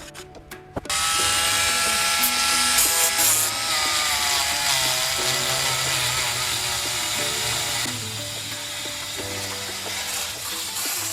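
Small power tool, such as a rotary tool or drill, starting about a second in and running steadily against the parts of a model gun being restored, over background music.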